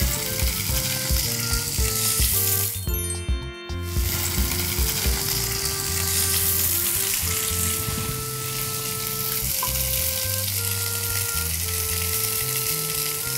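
Skewered minced-pork patties, brushed with hot oil, sizzling steadily as they pan-fry on a hot ridged grill pan.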